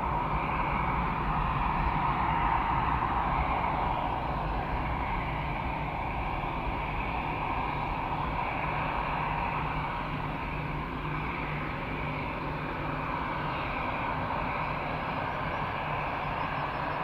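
Airbus A319-111's CFM56 turbofan engines running near idle as the airliner taxis: a steady jet whine over a low rumble.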